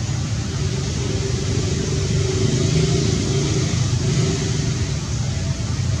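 Steady low engine rumble with a hiss over it, swelling a little a couple of seconds in.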